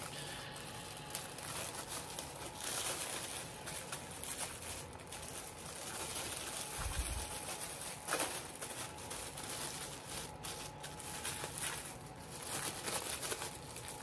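Plastic packaging crinkling and rustling as small items are handled and bagged, with scattered small clicks and a sharper knock about eight seconds in.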